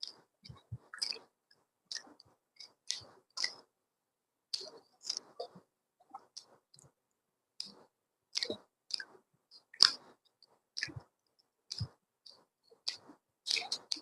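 Close-miked chewing and eating of a rice-and-fish meal: wet mouth smacks and clicks, irregular, one to three a second.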